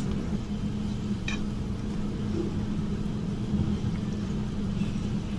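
Steady low electrical or machine-like hum with a faint single click about a second in.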